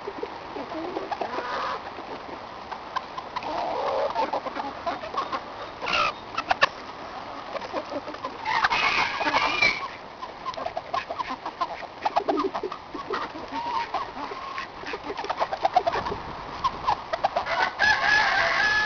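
A flock of chickens clucking while they peck at a cabbage on the ground, with many quick sharp pecking clicks. A louder burst of calls comes about nine seconds in, and a drawn-out call near the end.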